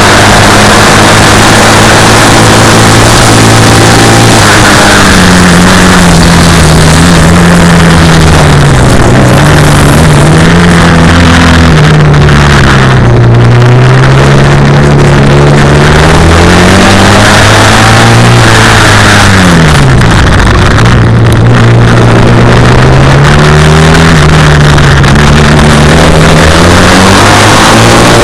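Classic racing sidecar outfit's engine heard loud from on board, its pitch rising and falling again and again as it accelerates, shifts gear and backs off for corners. The note drops steeply about twenty seconds in, then climbs again.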